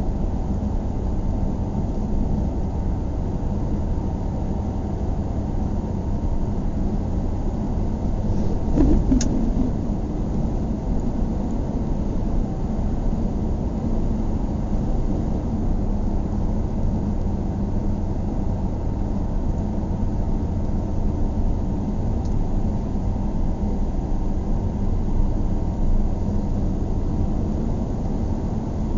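Car driving steadily at highway speed: a constant low rumble of engine and road noise, with a brief knock about nine seconds in.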